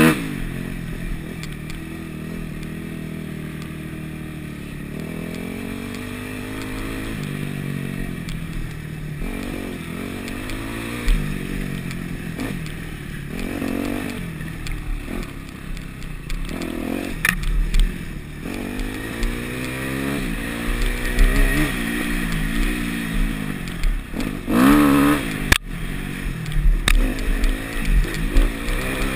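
Single-cylinder four-stroke engine of a Yamaha YZ250F dirt bike revving up and falling back over and over as it rides a rough trail, with a few sharp knocks and some clatter from the bike over the bumps.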